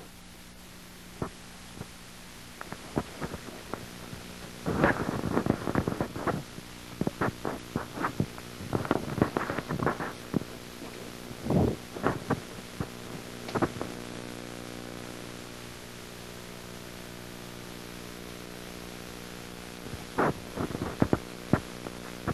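Steady electrical hum with irregular clicks and short crackles scattered over it, thickest in the middle stretch and again near the end.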